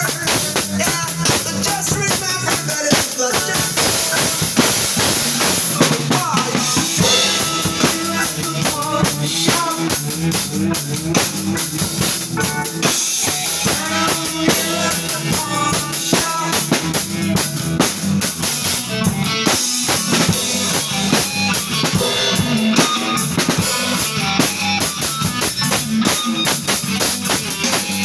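Acoustic drum kit played with sticks without a pause: bass drum, snare and cymbals struck in a driving rhythm.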